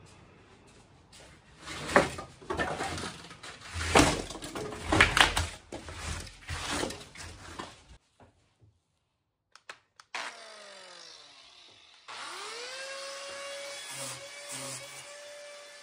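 Irregular loud scraping and crunching of styrofoam for several seconds. Then an angle grinder winds down briefly, spins up again about twelve seconds in, and runs steadily as it grinds into the foam.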